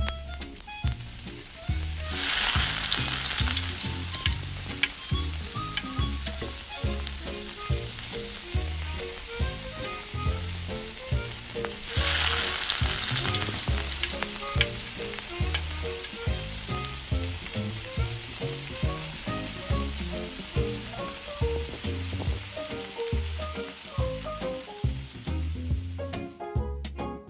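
Shrimp frying in hot oil in a small metal pan: a steady sizzle that swells loudly twice, about two seconds in and again about twelve seconds in, and stops near the end.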